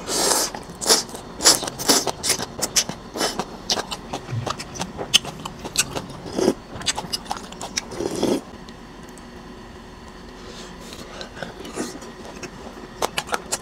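Close-miked eating of noodle soup: a loud slurp of rice noodles at the start, then wet chewing and mouth smacks with scattered clicks and a sip of broth from a spoon. It goes quieter for the last few seconds.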